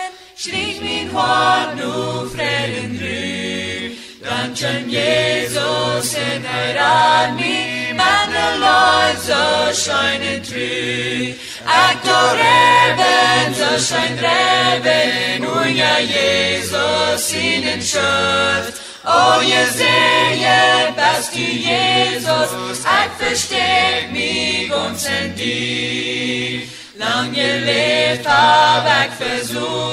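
Voices singing a slow hymn in Low German, phrase after phrase with short breaks between lines, over held low bass notes.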